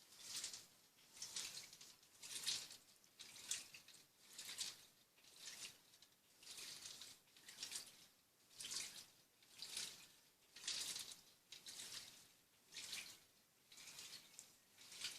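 Top-loading washing machine agitating a load of jeans: water sloshing in even swishes about once a second as the agitator turns back and forth.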